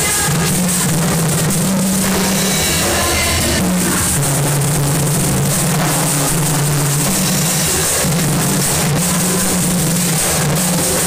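Vallenato ensemble playing live at rehearsal: button accordion over hand drums and scraped metal percussion, loud and continuous.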